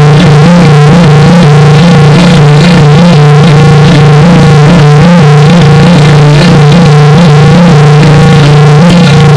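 Loud, clipped, distorted electronic audio effect: a steady low drone with warbling, wavering tones layered above it, in the style of a 'G major' video-effect edit.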